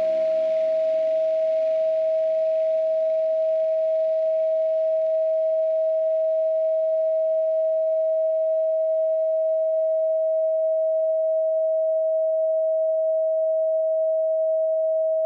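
A steady, pure electronic sine tone at about 639 Hz, held without a break. The faint tail of the ambient music fades away beneath it over the first ten seconds.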